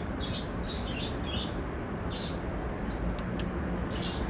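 Small birds chirping repeatedly over a steady low outdoor rumble, with two faint clicks a little past three seconds in.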